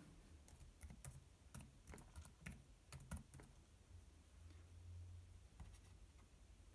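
Faint scattered light clicks and taps, clustered in the first three and a half seconds: small hard objects being handled.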